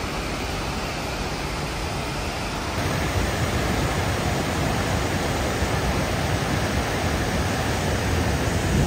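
Waterfall: a steady rush of falling water, growing a little louder and deeper about three seconds in.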